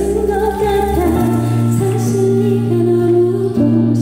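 A woman singing a Korean pop song live into a microphone, over sustained instrumental accompaniment that moves to a new chord about a second in.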